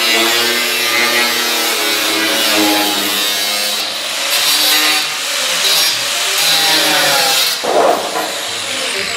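Angle grinder cutting through the sheet-steel lower body panel of a 1950 Ford, biting into the metal in stretches and then spinning down with a falling whine near the end. Background music plays underneath.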